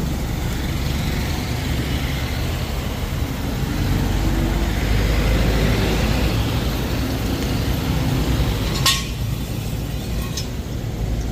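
Motor vehicle noise, a steady rumble that swells for a few seconds in the middle as if a vehicle passes, with a sharp click about nine seconds in.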